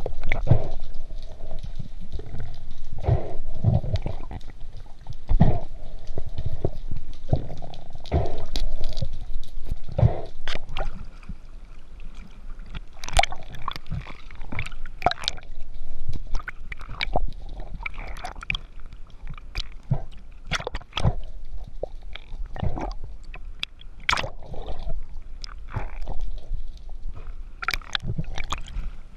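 Underwater sound on a diver's camera: water gurgling and sloshing around it, with many sharp clicks and knocks while the diver swims and handles the float line.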